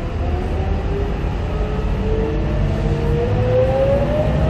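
Scania K230UB Euro 4 city bus heard from inside the passenger saloon, accelerating: a low engine drone with a transmission whine that rises steadily in pitch.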